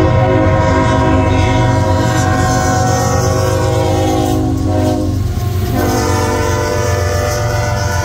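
CSX locomotive air horn blowing long, loud blasts, breaking off briefly about five seconds in and then sounding again, over the low rumble of the passing train.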